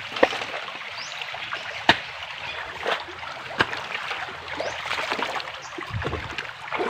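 Shallow stream running over rocks, with a few sharp splashes or knocks, the loudest in the first two seconds, and a dull thud near the end.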